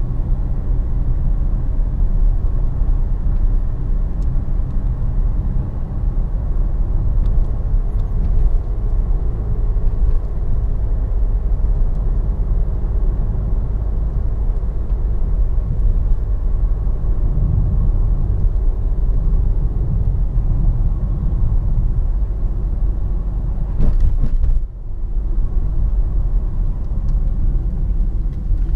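In-cabin sound of a DS7 Crossback 2.0 BlueHDi 180 four-cylinder turbodiesel cruising at town speed: a steady low engine drone mixed with tyre and road rumble. Near the end comes a short knock, then a brief dip in the drone.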